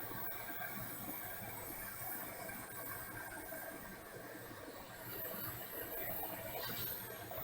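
Hot air rework station blowing a steady hiss of hot air.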